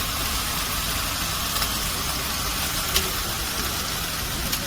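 Steady mechanical running noise with a low rumble, and a few faint ticks.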